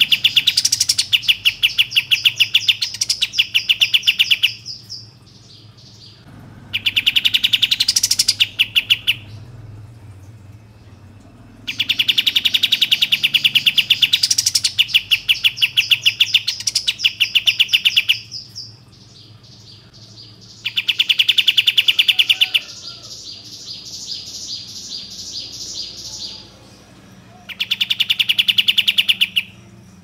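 Caged kapas tembak (a bulbul) singing: loud phrases of very rapid chattering notes, some rising in quick high sweeps, broken by short pauses of about two seconds.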